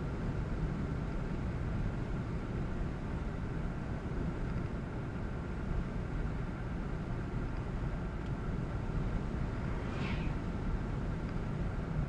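Steady road noise of a car driving at highway speed: low tyre rumble and engine hum, unchanging throughout.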